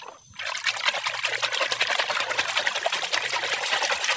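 Muddy water in a tub splashing and sloshing continuously as a hand swishes a toy vehicle rapidly back and forth to wash it, starting about half a second in.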